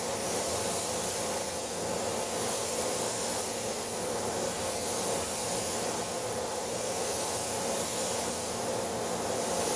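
Compressed-air paint spray gun hissing steadily as it sprays paint, with gentle swells in strength.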